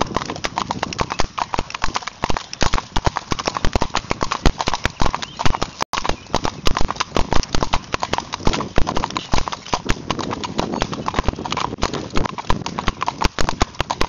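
Hoofbeats of a gaited Spotted Saddle Horse mare, a quick, dense clip-clop of many strikes a second, broken by a brief gap about six seconds in.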